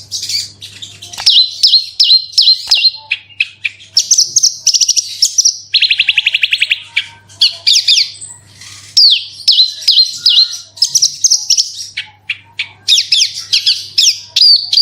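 Javan bush lark (branjangan) singing non-stop, a fast varied song of buzzy trills, runs of repeated slurred whistled notes and quick chips. A faint low hum lies underneath.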